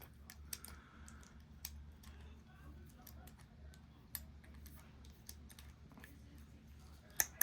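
Faint scattered clicks of a rebuilt Master Lock padlock being worked by hand as it is tested, with one sharper click near the end, over a faint steady low hum.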